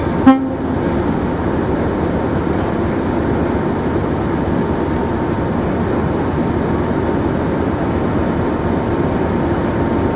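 Diesel locomotive horn gives one short toot just after the start, the second of a pair, then the locomotive's diesel engine runs steadily.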